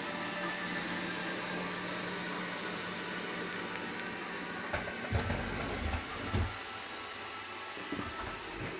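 Xiaomi Mi robot vacuum running, a steady whirring hum of its suction fan and brushes. About halfway through come a few dull low thumps.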